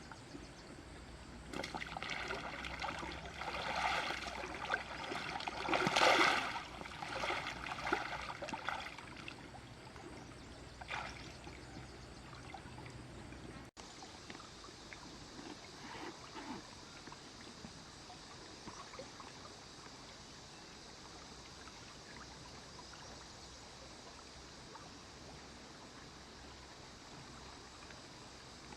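Water splashing and pouring in irregular bursts for several seconds, then, after a cut, a steady even hiss like flowing water.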